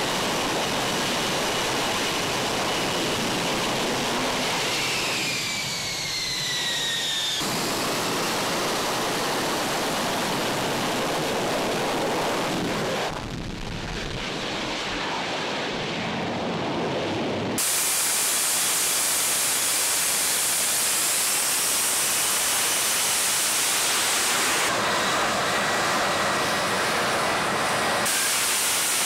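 F-35B Lightning II in vertical-lift flight, its F135 jet engine and shaft-driven lift fan running: a loud, steady rush of jet noise. The noise changes character abruptly several times, and about five to seven seconds in, two falling whines sound over it.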